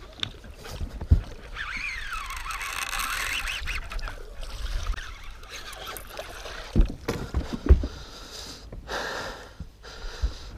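Fight with a hooked muskie on a baitcasting rod and reel in a boat: handling noise with a few sharp thumps. A wavering high squeal lasts about two seconds, starting a second or two in.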